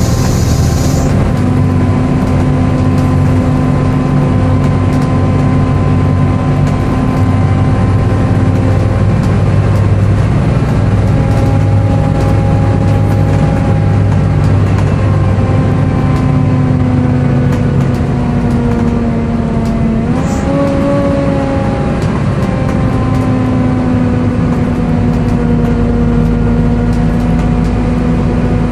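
Volvo B7TL bus running with its engine cooling fan giving a loud, screechy 'hoover' whine over the engine. The whine holds a steady pitch, sagging slightly before jumping up about twenty seconds in.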